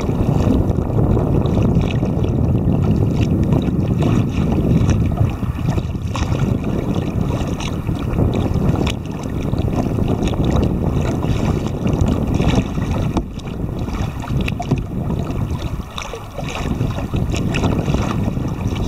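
Wind buffeting the camera's microphone, a low rumbling roar that swells and eases with the gusts, with small waves splashing against the kayak's hull.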